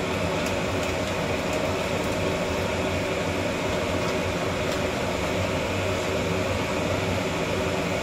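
Steady hiss of a gas burner under a pot of water at a rolling boil, with a faint low hum running through it.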